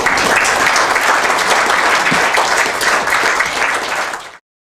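Audience applauding at the end of a talk, a dense patter of many hands clapping, cut off abruptly near the end.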